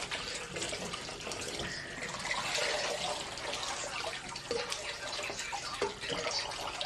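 Kitchen tap running into a basin of water while blanched mulberry shoots are swished and rinsed by hand in a plastic colander, with splashing and dripping as the colander is lifted out to drain.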